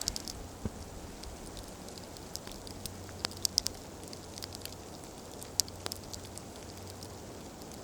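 Wood campfire burning with a steady hiss and scattered sharp crackles, with a quick run of pops about three and a half seconds in.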